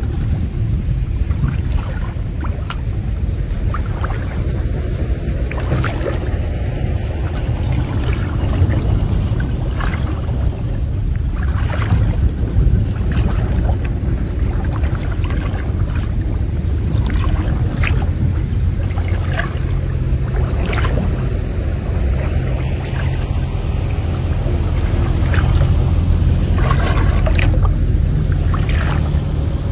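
Wind rumbling on the microphone, with scattered splashes and drips of water as a cast net is handled while wading.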